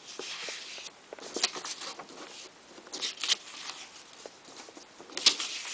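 Paper and packaging rustling, with scattered short crinkles and light knocks as items such as paper targets are handled out of the box.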